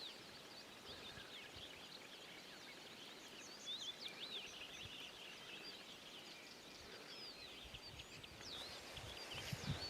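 Faint chorus of several small birds singing and calling, many short chirps and whistled notes overlapping, over a soft steady hiss. A few low thuds come near the end.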